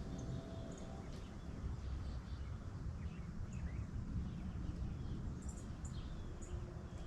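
Outdoor rural ambience: scattered short bird chirps and call notes over a steady low rumble.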